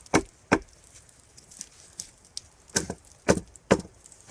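Hultafors Stålberg carpenter's axe chopping into fresh wood, stripping out bits of it: two sharp strikes at the start, then after a pause of about two seconds three more in quick succession.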